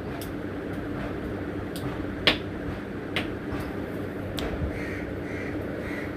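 Steel spoon stirring and scraping semolina as it roasts in ghee in a steel kadai, with a scattering of sharp clicks of the spoon against the pan, the loudest about two seconds in.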